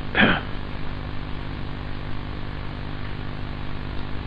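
Steady mains hum and hiss, with one short noise close to the microphone just after the start.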